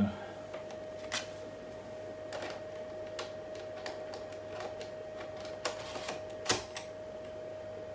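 A 386 laptop running through a DOS install, with a steady high whine and irregular sharp mechanical clicks and knocks every second or so.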